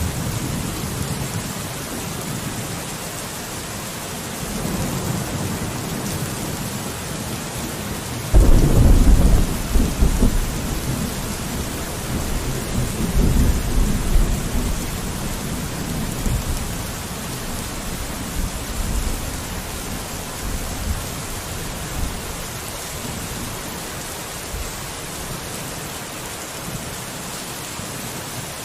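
Steady rain falling on a window, with thunder: a low rumble breaks in suddenly about eight seconds in and rolls on unevenly for several seconds, with fainter rumbles elsewhere.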